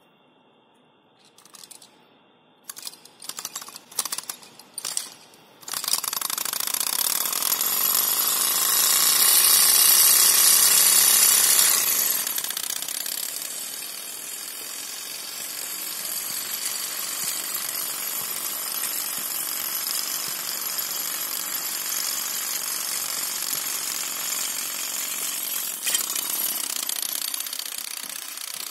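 Small kit Stirling engine on a homemade car: a few sharp clicks as its flywheel is set going, then, about six seconds in, the engine running continuously, loudest for the first several seconds and steadier after, as the car rolls on drink-can wheels across concrete.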